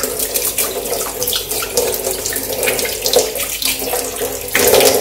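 Water running from a kitchen tap in a thin stream over hands and splashing into a stainless steel sink while bottle parts are rinsed. The splashing gets louder near the end.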